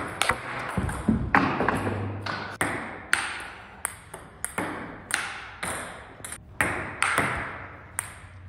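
Table tennis ball clicking off paddles and bouncing on the table in a rally, sharp hits about two a second, each ringing on in an echoing hall.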